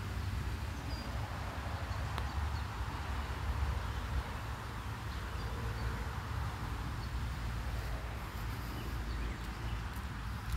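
Outdoor ambience: wind rumbling on the phone's microphone over a steady hiss, with a few faint bird chirps.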